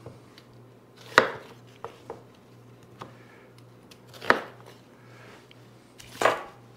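A Damascus-pattern chef's knife cutting through a cooking onion and striking a wooden cutting board: three separate cuts, each a short crunch ending in a sharp knock, a couple of seconds apart.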